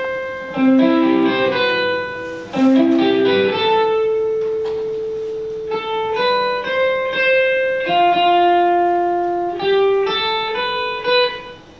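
Solo electric guitar playing a slow melody of single plucked notes, several of them left to ring for a second or two.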